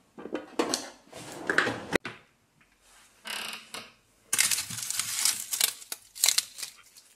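Kitchen utensils clattering as a hand rummages through a drawer, ending in a sharp knock about two seconds in. Then a run of rustling and crinkling as an onion is pulled from a mesh bag on a shelf.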